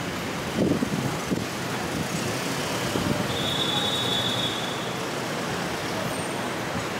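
Steady road-traffic noise of vehicles running at a curbside, with a few low thumps about a second in and a brief high-pitched squeal a little after three seconds.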